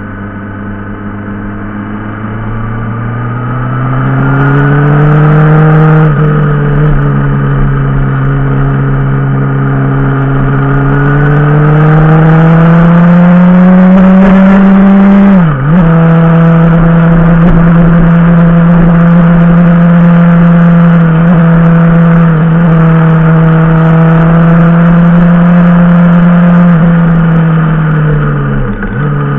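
Motorcycle engine under way, heard from the bike itself, its revs climbing as it accelerates and steadying between gear changes, with a sharp dip in revs for a shift about halfway through and another near the end.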